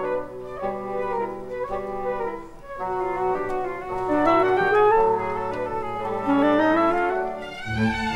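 Orchestral classical ballet music: a woodwind-led melody over held low notes, with quick rising runs in the middle.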